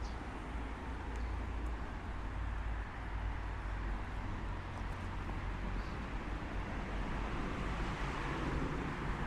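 Steady city street ambience: a continuous low rumble of traffic under a general wash of street noise, with a few faint high chirps.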